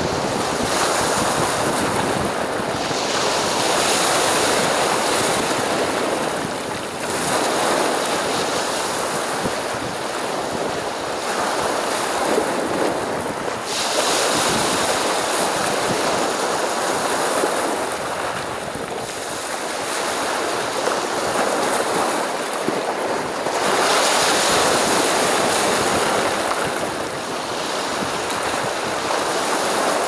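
Sea surf: waves breaking and washing up the shore in a continuous rush that swells and eases every few seconds.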